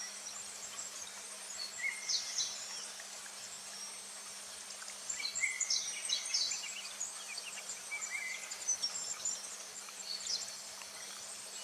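Summer forest ambience: a steady high insect buzz with scattered short bird chirps, busiest about two seconds in and again around the middle.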